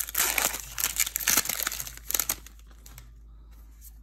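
Magic: The Gathering booster pack's foil wrapper crinkling as it is torn open by hand. The crinkling stops a little over two seconds in, followed by a few soft ticks.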